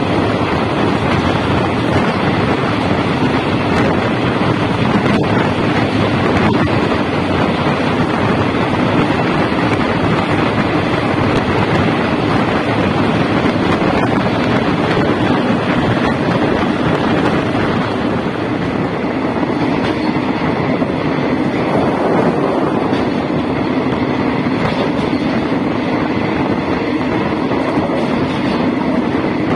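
Express passenger train running along the track: the steady noise of wheels on the rails, with wind rushing past the open window.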